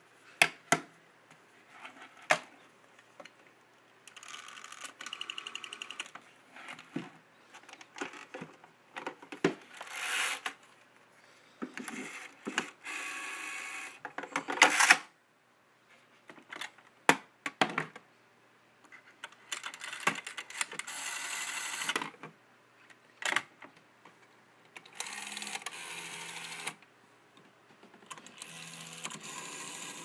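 Rotary telephone dials being wound round and let go, each return a whirring run of pulse clicks lasting one to two seconds, several times over. Sharp clicks and knocks from the handsets and phones being handled fall between the dial runs.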